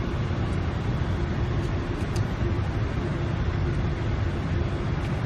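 Steady rushing noise inside a Boeing 747-400 cockpit, airflow and engine noise heard from the flight deck, with a faint steady hum under it.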